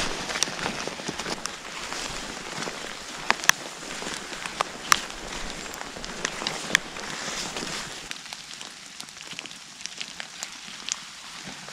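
Rain falling in woodland: a steady patter, with single drops tapping sharply close by at irregular moments. The patter thins out about eight seconds in.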